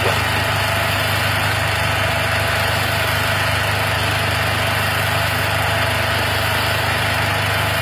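An engine running steadily: an even low hum under a constant hiss, with no change in speed.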